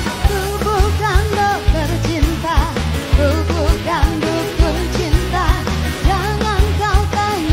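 A woman singing a pop song with a wavering vibrato into a microphone, over a backing track with a heavy, steady drum beat.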